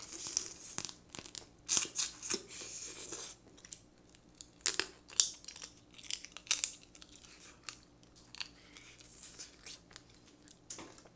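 Close-miked eating of steamed swimming crab: shell crackling and meat being bitten, sucked and chewed. The sharp, irregular crunches and smacks come thickest in the first few seconds, then thin out with a few louder ones in the middle.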